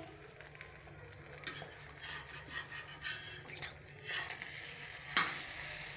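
Beaten egg with onion frying on a flat griddle, sizzling faintly, while a slotted spatula scrapes and pushes it across the pan in several short strokes. A sharp knock of the spatula against the pan comes about five seconds in.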